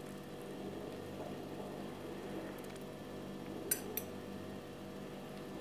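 Knife and fork on a plate, with two sharp metal-on-plate clinks a little under four seconds in, about a third of a second apart, over a steady low hum.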